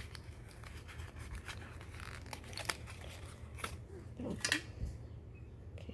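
Clear plastic packaging crinkling and rustling as a small toy is handled out of it, in a string of short, irregular crackles and clicks.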